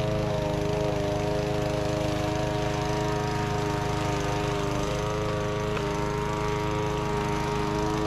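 Petrol lawn mower engine running steadily while mowing, its pitch wavering slightly now and then.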